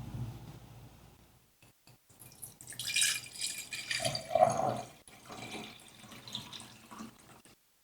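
A low rumble fades away in the first second or so, then water splashes and runs in irregular spurts.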